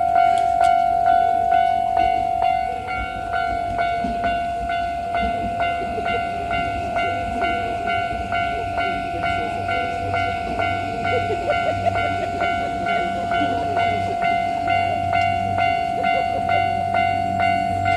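Japanese level-crossing warning bell ringing steadily, about two dings a second. Under it an electric train runs through, its rumble growing heavier from about halfway on.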